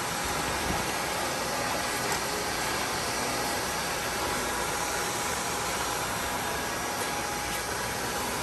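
Tineco Floor ONE S5 cordless wet-dry vacuum running steadily, an even motor whir with a few faint steady tones.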